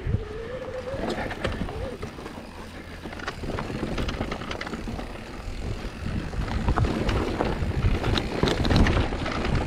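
Mountain bike riding over a rough dirt trail: tyres on the ground and the bike rattling with many small knocks, with wind on the microphone, growing louder in the second half.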